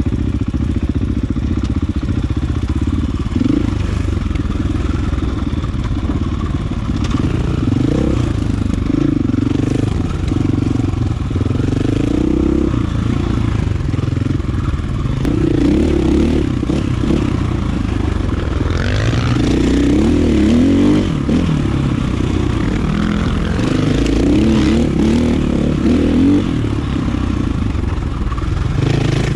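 2019 KTM 450 EXC's single-cylinder four-stroke engine being ridden, its revs rising and falling over and over as the throttle is worked.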